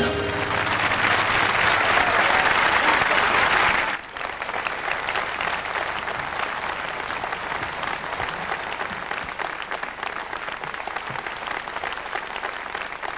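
Audience applause after a live song ends: loud for about four seconds, then dropping off and carrying on more quietly.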